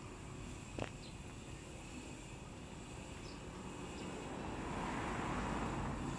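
Faint outdoor background noise with a single sharp click about a second in, then a vehicle passing at a distance, swelling and fading near the end.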